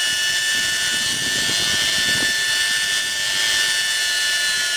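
Homemade turbocharger-based turbojet engine running steadily: a constant high-pitched whine over a rushing hiss.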